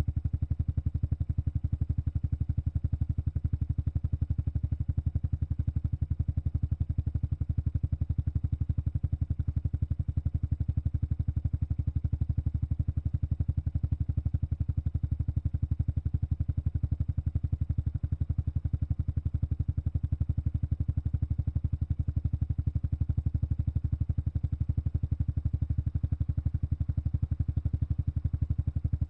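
Honda Super Cub 110 Pro's air-cooled single-cylinder four-stroke engine idling steadily through its exhaust, an even rapid pulse that holds constant with no revving.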